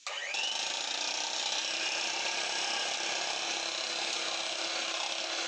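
Electric hand mixer whipping cream: the motor starts suddenly with a short rising whine as it spins up, then runs steadily with the beaters churning through the cream.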